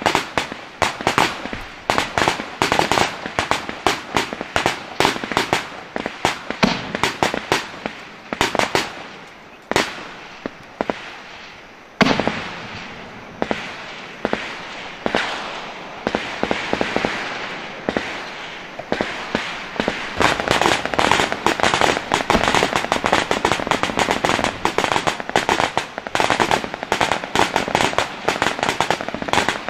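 Rapid, irregular sharp cracks and pops, many a second. They ease off for a few seconds midway, leaving a softer hiss, then come thick again.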